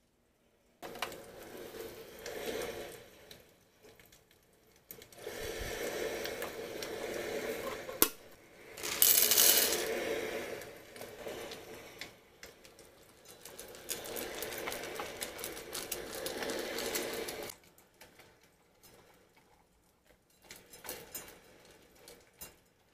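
Dry dog kibble rattling against a stainless steel bowl in several stretches of a few seconds each, loudest and brightest about nine seconds in. Near the end it gives way to quieter scattered clicks as a dog eats from the bowl.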